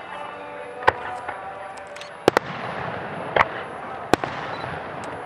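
Aerial fireworks shells bursting: five sharp bangs spaced roughly a second apart, two of them close together in the middle, with a steady background haze between them.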